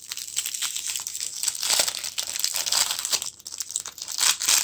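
Plastic toy packaging crinkling and tearing as it is handled and pulled open: a dense run of quick crackles, loudest near the end.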